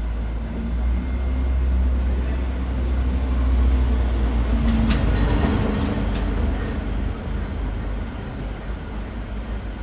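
Wind rumbling on the microphone, a loud, steady low rumble. About five seconds in come a few sharp knocks of a padel ball being struck.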